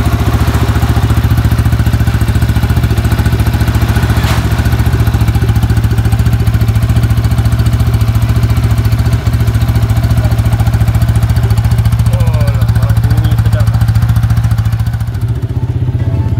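Yamaha FZ150i's single-cylinder four-stroke engine, rebuilt with a 63 mm cylinder block, idling steadily with an even exhaust beat. About a second before the end it cuts to a different engine sound.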